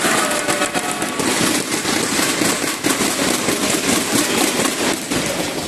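Large indoor crowd cheering and clapping loudly, a dense wall of shouts with many sharp claps or bangs running through it.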